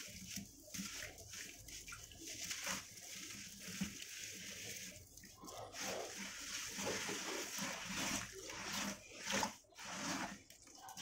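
Wet sand-cement chunks squeezed and crumbled by hand in a tub of muddy water, with a hand swishing through the water: gritty, irregular squelching and splashing.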